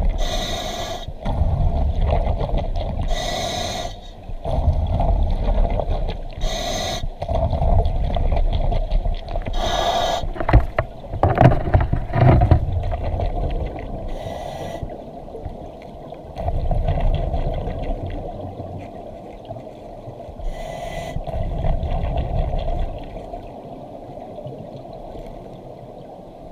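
Underwater breathing through a double-hose scuba regulator: about six short bursts of exhaled bubbles, several seconds apart, over the steady low rumble of river water around the microphone. A few sharp knocks and scrapes come near the middle.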